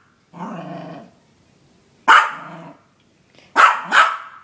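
Yorkshire terrier barking: a short low growl about half a second in, then three sharp, high yaps, one about two seconds in and two close together near the end.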